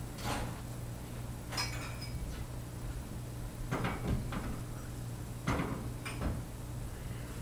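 Several scattered clinks and knocks over a steady low hum.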